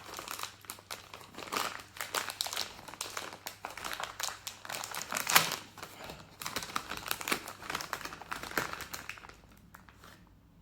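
Plastic snack packet of Fridge Raiders Veggie Bites crinkling and crackling in irregular bursts as it is handled and opened, dying down near the end.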